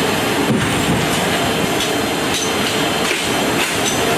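Loud steady machinery rumble with a few scattered metal clanks and knocks, from heavy cargo handling: a forklift working a cargo container off a C-17's roller-floored cargo deck.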